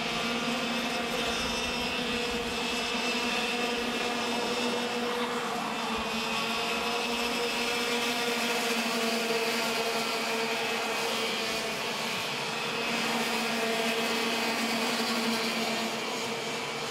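Racing karts' two-stroke engines running at high revs, a steady, buzzing drone that carries on without a break.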